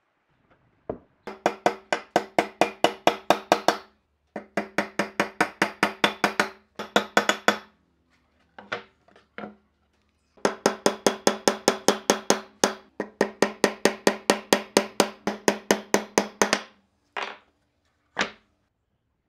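Rapid, regular knocking, about six or seven strikes a second, each with a short ringing tone. It comes in runs of a few seconds with short breaks, and ends with two single knocks near the end.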